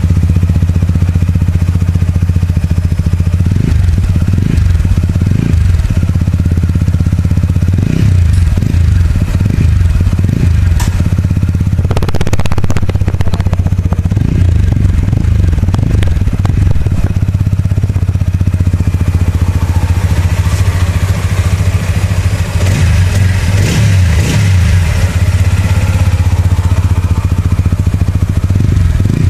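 TVS Apache RTR 200 4V's single-cylinder, four-valve 200 cc engine running through its stock twin-outlet muffler, idling with several short throttle blips.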